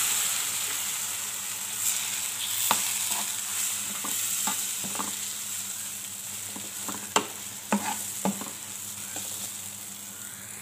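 Water sizzling and steaming in a hot pan of semolina fried in ghee, the sizzle dying away steadily as the water is taken up. A spoon stirs through it, scraping and clicking against the pan every second or so.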